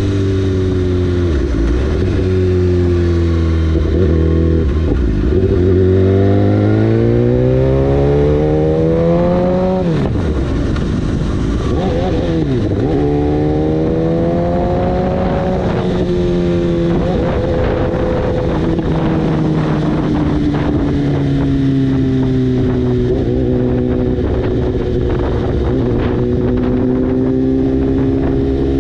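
BMW S1000RR inline-four engine running through an Akrapovic full exhaust system under way, its note climbing under acceleration. The pitch falls sharply about ten seconds in, climbs again and falls around sixteen seconds, then holds steadier revs with small rises and falls.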